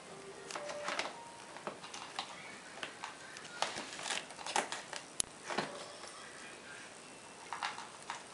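Kittens scrambling and pawing over a plastic bag and cardboard: irregular crinkling, rustling and scratching in short, uneven clusters.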